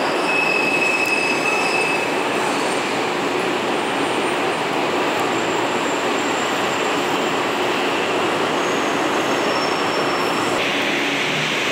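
Steady traffic noise from a busy avenue, with city buses and cars passing.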